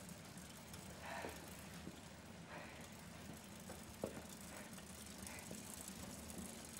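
Quiet room with a faint steady low hum, a few soft rustles and one light click about four seconds in.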